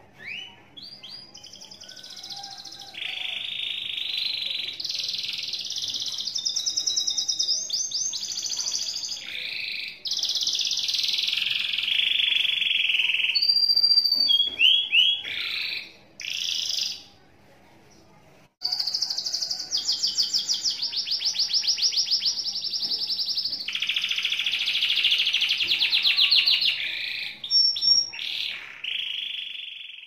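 Domestic canary singing a long, near-continuous song of rapid trills and rolls: the drawn-out 'ngekek' song that keepers prize. It breaks off briefly a little past halfway, then resumes.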